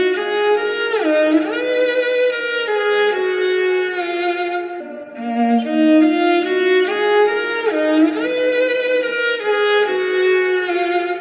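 Music: a melodic, drumless breakdown with a violin-like lead that slides between notes, over sustained chords and with no bass. It dips briefly about halfway through.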